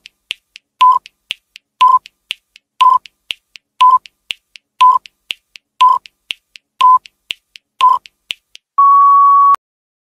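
Countdown timer sound effect: a short beep once a second with a softer tick between the beeps, ending in a longer, slightly higher beep as the timer runs out.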